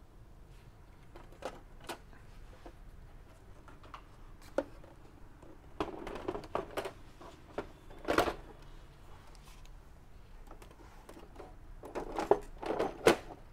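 Irregular clicks, taps and short clattering bursts from plastic and metal parts being handled inside an opened inkjet printer, its circuit board, carriage rail and ribbon cables exposed.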